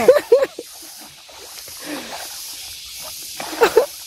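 Short bursts of men's voices near the start and again near the end, over a steady high hiss.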